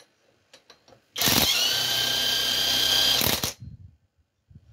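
Cordless drill-driver spinning a car alternator by its pulley nut: a steady whine for about two seconds that then stops, with a few light clicks before and faint knocks after.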